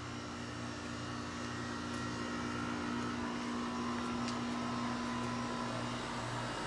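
2008 Goodman heat pump's outdoor unit running in heat mode just after it restarted: a steady compressor hum and fan noise, growing slightly louder as it comes up to speed.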